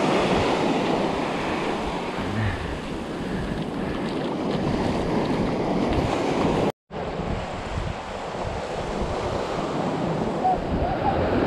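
Small surf washing up on a sandy beach, a steady wash of waves with wind buffeting the microphone. The sound drops out for a split second about two-thirds of the way through.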